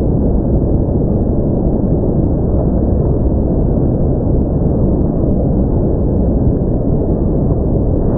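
Automatic car wash in operation: cloth curtain strips and water spray working over a car, heard as a loud, steady rushing noise with no breaks.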